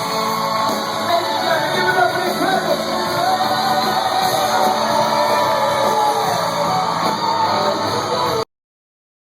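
Live rock band playing with voices singing, loud and steady, until it cuts off abruptly about eight and a half seconds in.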